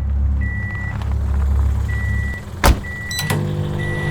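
A motor vehicle running with a low rumble while a high warning beep repeats about once a second, like a reversing alarm. The rumble cuts out, and a single sharp bang follows just after.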